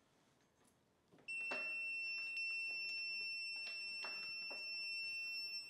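A steady, high-pitched electronic beep starts about a second in and holds, with a few sharp clicks and creaks as the test rig strains the glued loose-tenon joint toward breaking.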